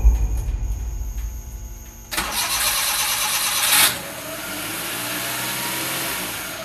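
Suzuki F6A 660cc three-cylinder engine just started and running, its heavy starting rumble fading over the first couple of seconds. About two seconds in, a loud rushing hiss lasts nearly two seconds, then the engine runs on at a steady idle.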